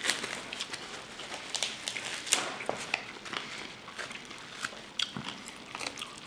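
Person chewing a bite of crisp pan-fried shemaya fish with a corn-flour crust: a run of irregular sharp crunches and crackles.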